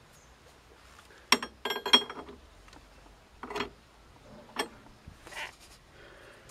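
Steel combination wrench clinking against the nut of a tie rod end on an Opel Corsa C's steering: a sharp click about a second in, then a quick cluster of ringing metal clinks, and a few single taps later.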